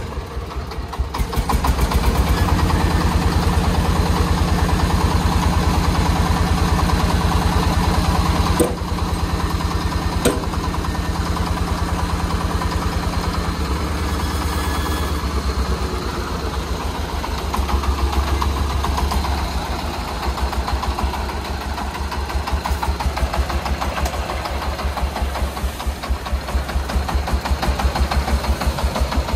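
Công nông farm truck's single-cylinder diesel engine chugging with a steady, rapid beat. It picks up about a second and a half in and eases off somewhat later on. Two sharp knocks come about nine and ten seconds in.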